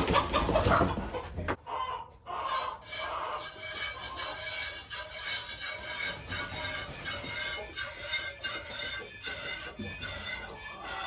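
Chickens clucking in short, repeated calls. A louder rustling noise fills the first second and a half.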